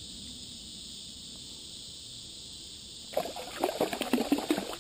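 A fish splashing at the water's surface as it strikes a lure: a quick flurry of splashes lasting about a second and a half, starting about three seconds in. Steady chirring of insects runs underneath.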